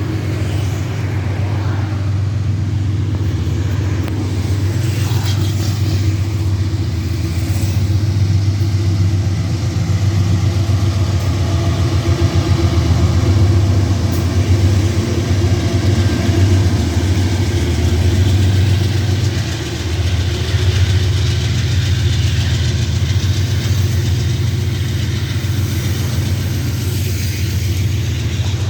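Train passing close by: a loud, steady low drone from the locomotive with rolling noise over it.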